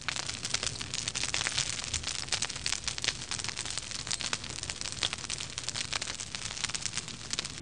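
Fire crackling sound effect: a dense run of irregular sharp crackles and pops over a steady hiss.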